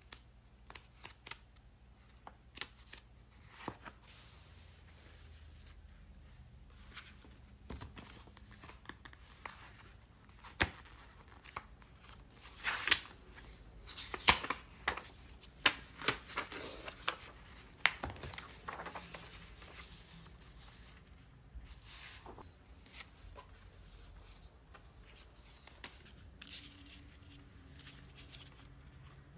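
Paper being handled and torn for a journal collage: scattered light taps and clicks, with a busier stretch of louder tearing strokes in the middle.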